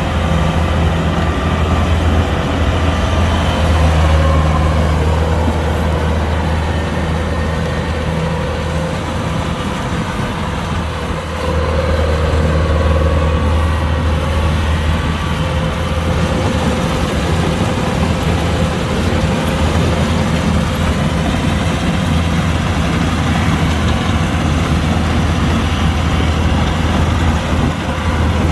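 Kubota combine harvester's diesel engine running steadily with a deep hum, swelling a little in level a few times.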